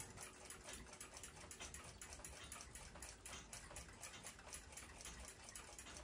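Faint, quick, even ticking of a mechanical clock, several ticks a second, over near-silent room tone.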